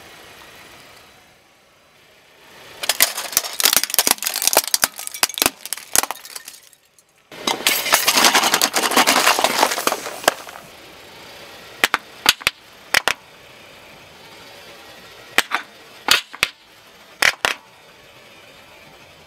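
Car tyre rolling over and crushing small plastic containers and packets: a quick run of sharp cracks and pops, then a dense crunching burst about eight seconds in, and later a few scattered single pops.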